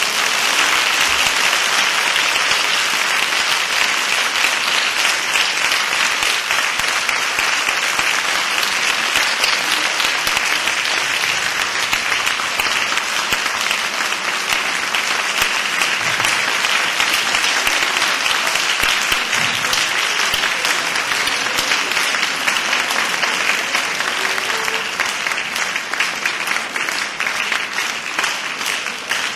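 Theatre audience applauding steadily; near the end the applause thins and turns into rhythmic clapping in unison.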